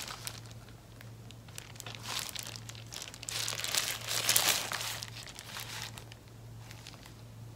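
Hand-mask sheet gloves crinkling and rustling as the gloved hands rub and move, loudest in a dense stretch about three to five seconds in.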